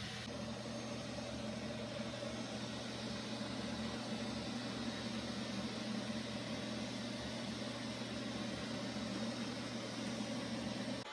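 Neato XV-21 robot vacuum running on carpet: a steady mechanical hum from its motor and brush.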